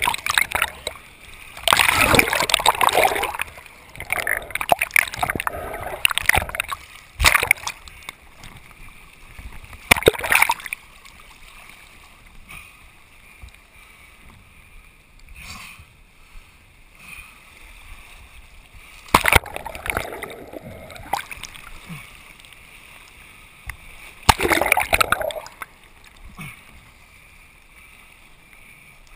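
Seawater splashing and surging around an action camera in shallow rocky surf, coming in loud irregular bursts with quieter stretches between as the camera dips under and out of the water.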